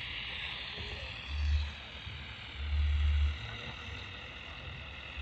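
CB radio receiver on 27.025 MHz hissing with static, any signals too weak to make out under the noise. Two low rumbles on the microphone, the second lasting nearly a second.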